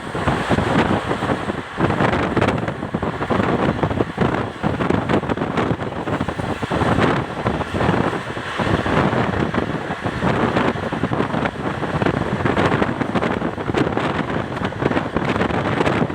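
Shramjivi Superfast Express train running at speed: a loud, continuous rumble and rattle of wheels on the track, with many irregular knocks and wind buffeting the microphone.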